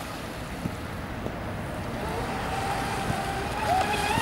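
Twin-motor electric RC catamaran running on the water: a faint motor whine comes in about halfway and rises steadily in pitch and loudness, over a low rumble of wind noise.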